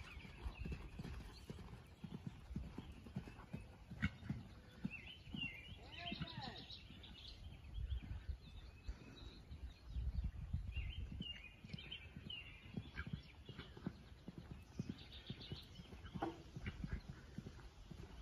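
A horse's hooves thudding on sand arena footing at a canter, a steady run of soft low beats.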